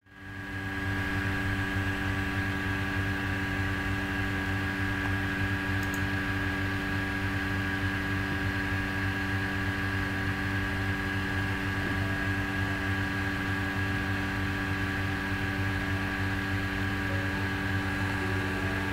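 A steady, unchanging hum made of several fixed tones, fading in over the first second.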